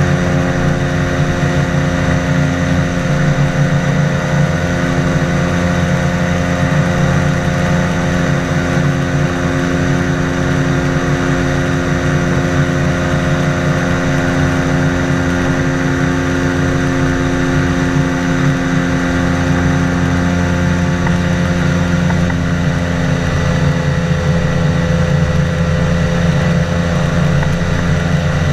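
Boat engine running steadily at constant speed, with a slight change in its tone about twenty seconds in.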